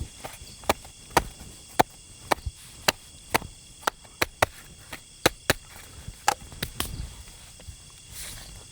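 A run of sharp, irregular wooden knocks or cracks, about two a second, easing off near the end.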